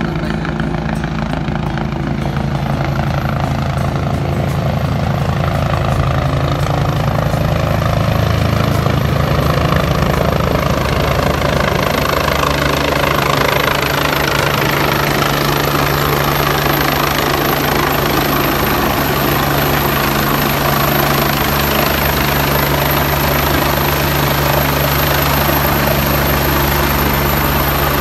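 A helicopter approaching and coming in low overhead, its rotor beating steadily. It grows louder over the first several seconds as it closes in, then holds steady.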